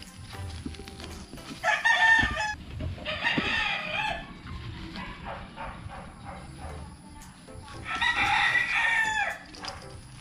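Two long bird calls, the first about two seconds in with a short break in it and the second near the end. Under them, soft rustling and clicks from a rubber hose being handled and coiled.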